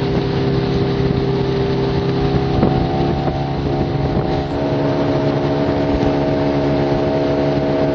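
Small outboard motor running steadily at speed, over a constant hiss. Its note changes to a slightly different steady pitch about four and a half seconds in.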